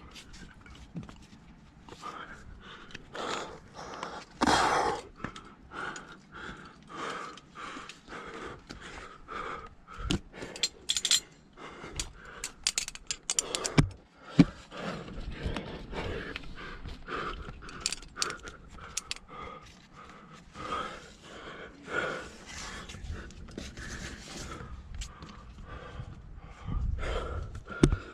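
A rock climber breathing hard while working up a chimney, with a few sharp clicks and scrapes from gear or rock around the middle.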